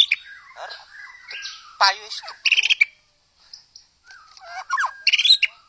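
White-rumped shama singing a varied song of whistled slides and rapid chattering phrases, with a brief pause about halfway through before another loud phrase.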